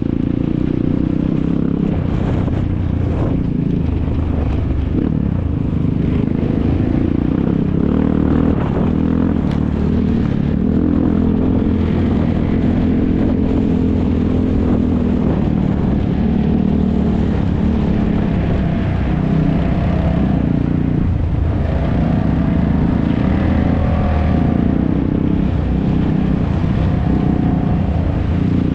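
ATV (quad bike) engines running hard and continuously, with the pitch rising and falling as the riders rev through the throttle, more clearly in the second half.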